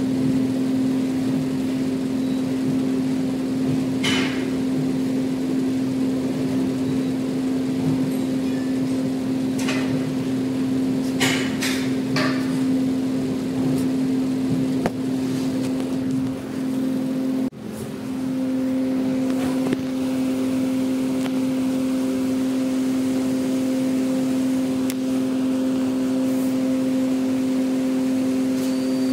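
A loud, steady hum at one low pitch, with a few sharp knocks about four seconds in and again around ten to twelve seconds in.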